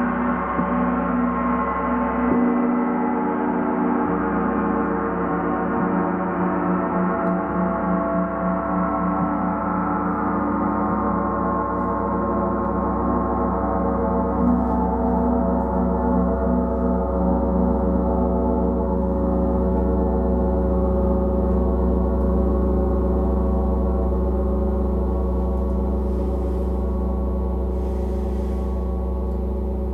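Gong ringing in a steady, dense wash of many overlapping tones over a deep hum, its higher tones slowly fading away.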